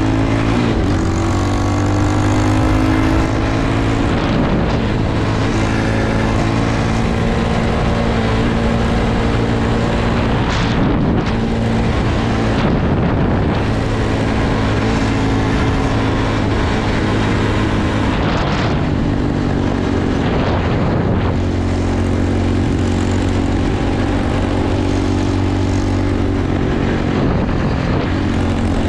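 Dirt bike engine running while riding along the road, its pitch shifting up and down with throttle changes, over steady wind rush.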